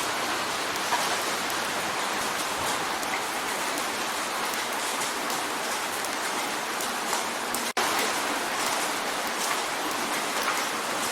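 Steady rain drumming on a window pane: a dense even patter with scattered individual drop ticks. It cuts out for an instant about three-quarters of the way through.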